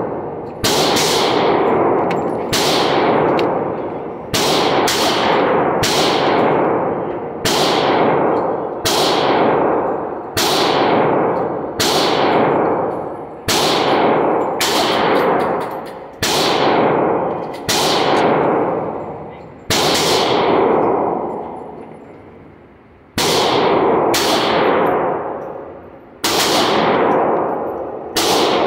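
GSG 1911 .22 LR pistol firing single shots at a slow, even pace, about one every one and a half seconds, each crack trailing off in a long echo in an indoor range. A pause of about three seconds comes a little past two-thirds through.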